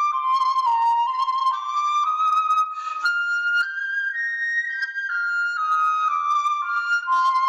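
Flute playing a melody in stepped, held notes that climb to a high point about halfway through and then step back down.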